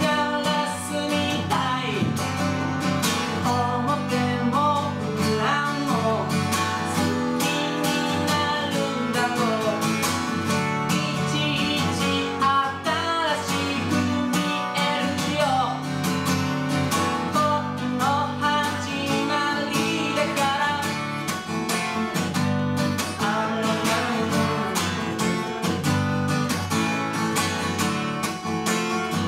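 Acoustic guitar strummed and picked, playing a song live.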